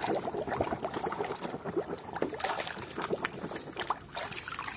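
Water sloshing and splashing in a plastic tub as a hand swishes a plastic toy cow through muddy water to wash it, in quick irregular splashes.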